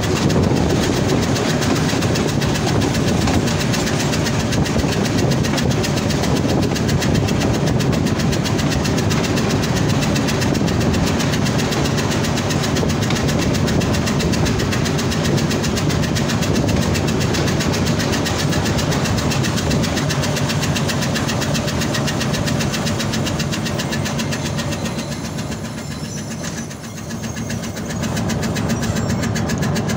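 HBU-20 diesel-electric locomotive engine running steadily while the train rolls slowly into the station. It fades briefly near the end, then comes back up.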